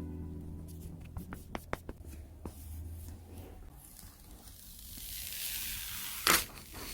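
Handling of thin plastic film or packaging: a few light clicks and taps, then a rustling hiss that swells and ends in a sharp crackle near the end.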